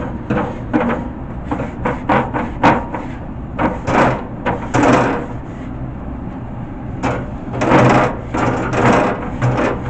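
Grill grates being scrubbed in irregular back-and-forth strokes with a nylon brush and scrubber pad, each stroke a short rasping scrape, the longest and loudest about four seconds in and again near the end, over a faint low hum.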